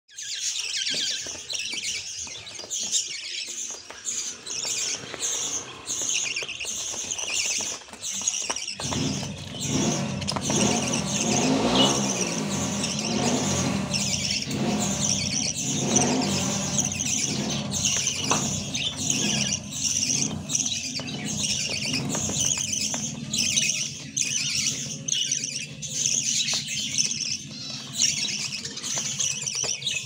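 Budgerigars, mostly young chicks, chirping over and over in a fast run of short high calls. About nine seconds in, a steady low drone like an engine joins the chirping.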